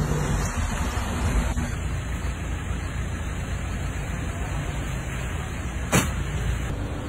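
4x4 vehicle engines running under a steady rush of wind and tyre noise on the phone's microphone. There is a single sharp click about six seconds in.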